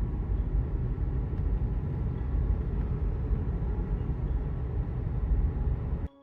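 Car road noise: a steady low rumble that cuts off suddenly near the end.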